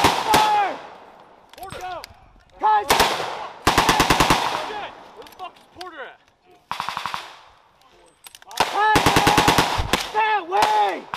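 Belt-fed machine gun firing short bursts of automatic fire, about ten shots a second: two quick bursts a few seconds in and a longer burst near the end.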